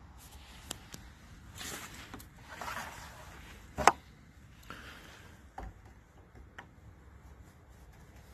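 Scattered handling noises: rustling and a few light clicks, with one sharp click or knock about four seconds in. The compressor's engine is not running.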